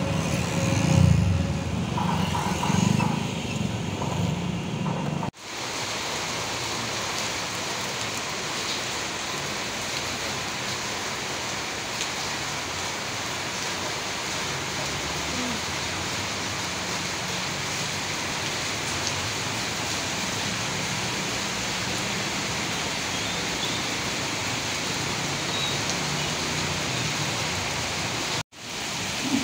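Motorbikes and cars driving by on a wet street for about five seconds, then an abrupt cut to steady heavy rain pouring down on pavement and trees.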